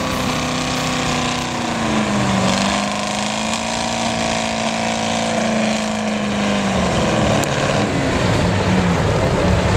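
Off-road trial truck's diesel engine running hard at high revs as the truck crawls over rough ground, its pitch sagging slightly about two seconds in and dropping lower near the end.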